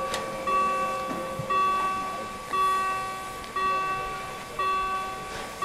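A bell rung at an even pace of about one stroke a second, each stroke ringing out and fading before the next.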